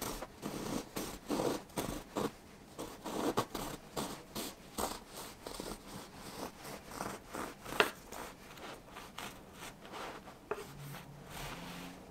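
A knife sawing back and forth through a loaf of soft white bread on a wooden cutting board, its blade scraping the crust in short repeated strokes. There is one sharp click about eight seconds in.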